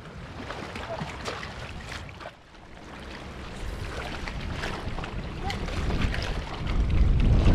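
Small river waves lapping and splashing against a rocky bank, with wind buffeting the microphone, heavier near the end.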